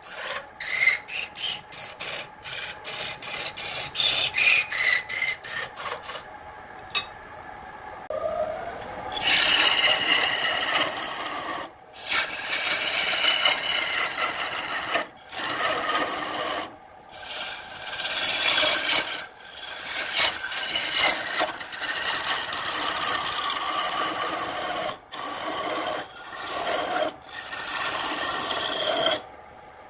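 A turning chisel cutting into spinning wood on a lathe, a rasping shaving sound. For the first several seconds it comes as rapid short strokes, then as long continuous cuts broken by brief pauses when the tool lifts off.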